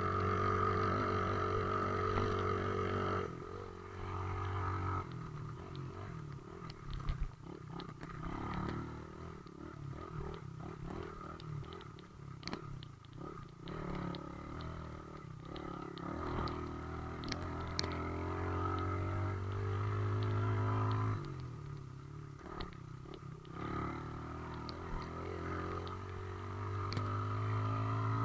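Off-road vehicle engines running, their pitch stepping up and down several times as they change speed, with a few sharp clicks and knocks.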